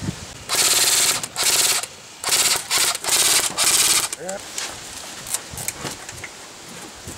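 Airsoft electric rifle firing on full auto in five rapid bursts of about half a second each, a fast rattle, over the first four seconds.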